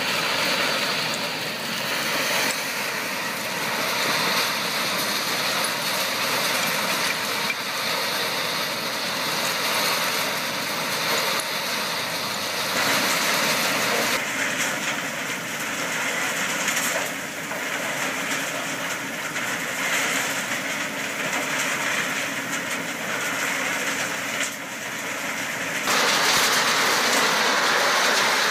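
Doppstadt SM518 Plus trommel screen running under load: a steady, dense mechanical noise of the rotating screen drum and conveyors as topsoil tumbles through. The noise changes abruptly a few times and is loudest in the last couple of seconds.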